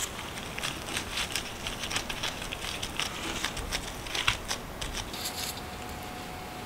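Gloved hands pressing and flattening soft scone dough on a silicone baking mat: a string of soft, irregular crinkles and light taps from the disposable gloves and the dough.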